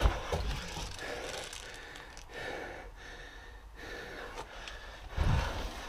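A person breathing hard and out of breath, heavy breaths in and out close to the microphone. A dull thump about five seconds in.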